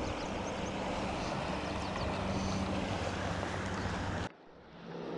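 Steady rush of flowing river water close to the microphone. It cuts out abruptly about four seconds in, then fades back up.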